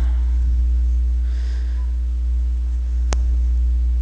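Steady low electrical hum picked up by the recording microphone, with a single sharp click about three seconds in.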